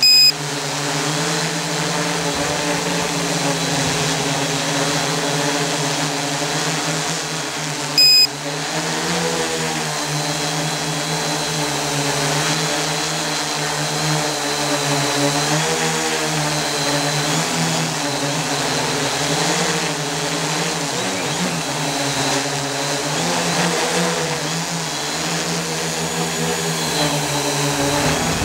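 The eight electric motors and propellers of a hovering Oktokopter XL octocopter, heard from on board: a steady, many-toned drone whose pitch wavers up and down as the motors adjust thrust. A short, loud, high beep cuts in about eight seconds in.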